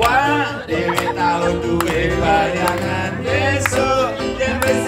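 A woman singing a Javanese pop song live into a microphone, with musical accompaniment; the singing is off-key.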